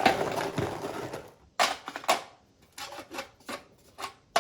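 Stones being shuffled and set in place on a gas fire table's burner tray: a rough scraping and rubbing at first, then several separate hard clacks as stones knock together and against the metal.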